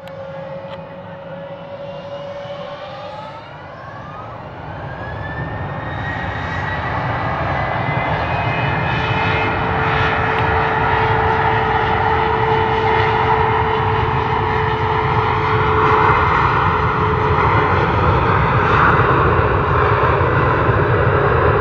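Boeing 717's two rear-mounted Rolls-Royce BR715 turbofans spooling up to takeoff thrust. A whine rises in pitch over the first few seconds, then a jet roar grows louder for about ten seconds and holds steady as the aircraft begins its takeoff roll.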